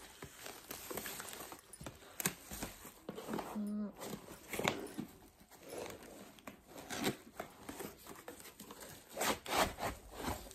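Cardboard box being pulled open and handled: scraping, rustling and a string of sharp knocks and crinkles from the flaps and packing, busiest near the end. A short voice-like hum sounds about four seconds in.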